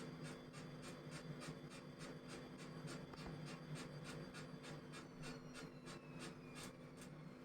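Atlant 70U1214 washing machine drum turning at low spin speed, squeaking in short regular strokes about three times a second over a steady motor hum; the strokes stop near the end. The squeak comes from the drum of a five-day-old machine and is a known fault at low spin speeds.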